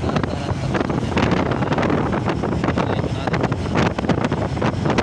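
Wind gusting hard over the microphone of a moving motorcycle, with the engine running underneath.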